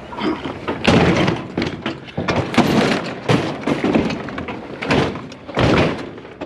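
Scrap being shifted and wedged into place by hand: a series of knocks, bangs and scrapes, with the loudest hits about a second in and again near the end.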